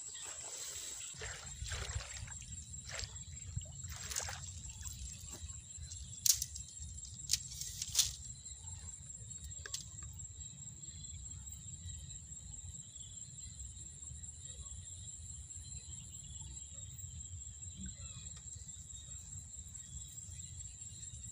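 Rice-paddy ambience at dusk: a steady high-pitched whine over a low wind rumble on the microphone. Rustling and a few sharp clicks fall in the first eight seconds as hook lines are handled at the water's edge.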